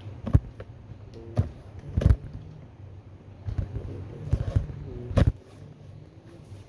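A series of sharp knocks and thumps, some close together, over a low steady hum.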